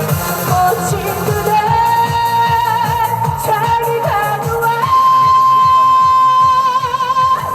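Trot song played live: a female singer holds long, wavering notes over a backing track with a steady beat.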